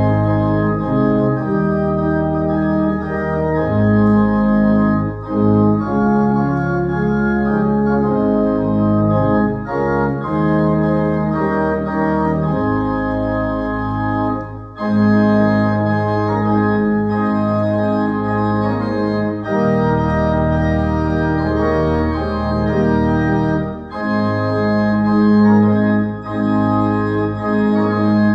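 Organ music: sustained full chords over a low bass line, the harmony moving every second or two.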